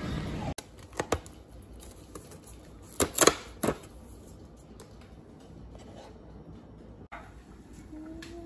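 Cardboard pasta box being torn open along its perforated flap: a few sharp papery rips and clicks, the loudest around three seconds in. Near the end, a kitchen knife tapping on a wooden cutting board as greens are chopped.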